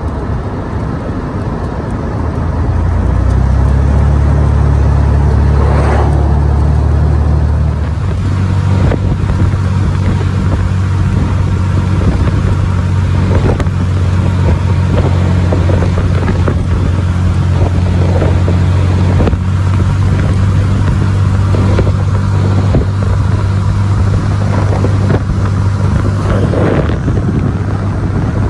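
Convoy vehicle's engine running under way, growing louder about three seconds in and changing its note about eight seconds in, then holding steady.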